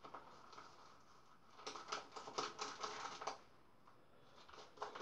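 Shaving brush worked in a lather bowl to load more lather, giving a faint, quick run of soft clicks and squelches over about a second and a half, with a couple more near the end.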